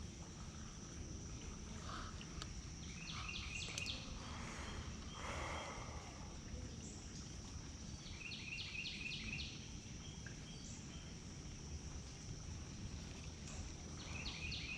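Outdoor creekside ambience: a songbird repeats a short phrase of about six quick notes three times, roughly every five to six seconds, over a steady high insect drone and a low hiss. A brief rustle comes about five seconds in.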